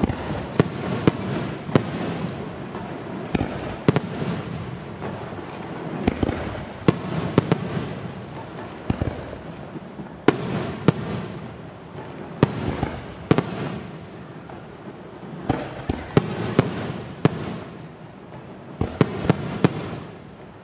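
Aerial fireworks display: shells bursting overhead in repeated sharp bangs at uneven intervals, often two or three in quick succession.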